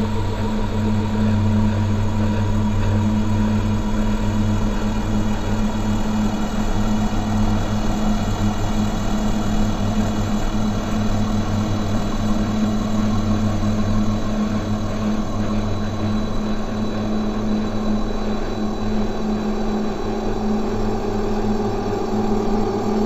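Dark ambient drone music: a steady, dense low hum of sustained layered tones under a noisy wash, with no beat.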